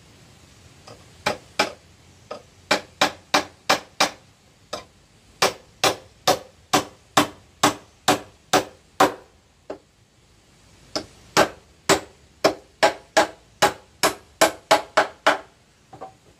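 A hammer nailing old wooden planks together. There are two runs of sharp strikes, about three a second, with a short pause between them.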